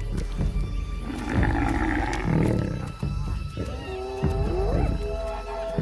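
Lions growling over a kill, low and rough, loudest about two seconds in, under background music with sustained tones.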